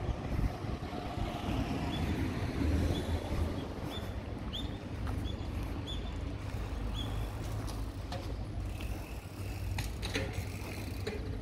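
Steady low rumble of outdoor ambience, with a string of short, high chirps between about two and seven seconds in and a few clicks near the end.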